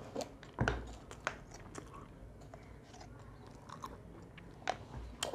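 Chewing close to a clip-on microphone, with scattered sharp clicks and taps as a small glass jar is opened and a spoon scoops from it.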